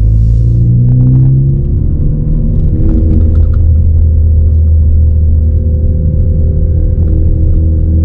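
2018 Ford Focus ST's turbocharged 2.0-litre four-cylinder running through a Roush exhaust: a loud, low drone whose pitch shifts over the first couple of seconds, then holds at a steady engine speed.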